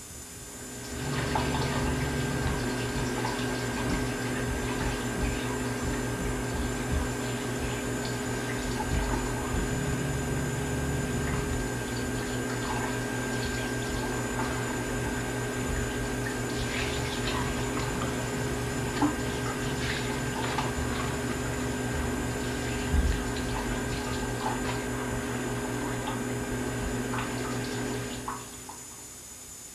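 Steady background hum with a hiss over it, holding several unchanging tones, with a few faint clicks. It starts about a second in and cuts off near the end.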